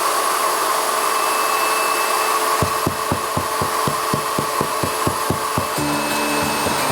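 A power drill's hole-cutting bit grinds against wood inside a wall, with a rapid knocking of about five or six strikes a second from a little under halfway through. It changes to a steadier hum near the end. The bit is catching on a wooden beam hidden in the wall.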